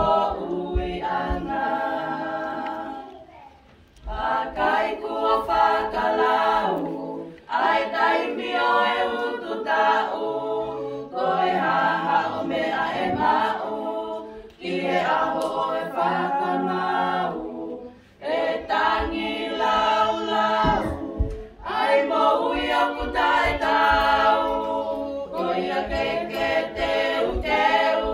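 A women's group singing a cappella in Tongan, in unison and harmony, in phrases of about three and a half seconds with a short breath between each.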